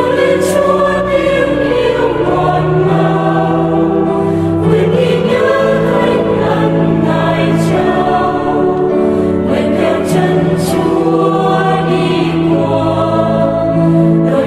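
A choir singing a slow hymn in several parts, holding long chords that change every second or two.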